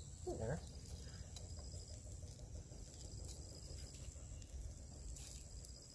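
Faint crackles from a small wood cooking fire under a frying pan, a few isolated snaps, over a steady high-pitched insect drone.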